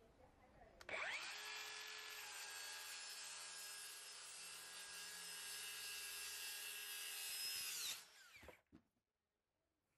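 Cordless DeWalt FlexVolt circular saw spinning up about a second in and running steadily through a long rip cut in a board. Near the end it winds down with a falling whine, then stops.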